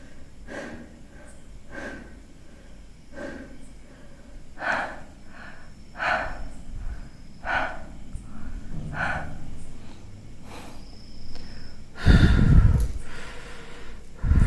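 A person breathing heavily and nervously, one short noisy breath about every second and a half. Near the end comes a sudden, much louder low rumbling burst.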